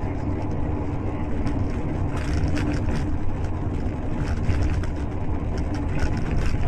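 A steady low rumble with scattered faint clicks and rattles.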